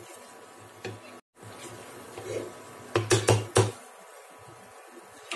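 A cooking spoon knocking against a frying pan: three or four sharp taps in quick succession about three seconds in, after a single click earlier and some quieter stirring.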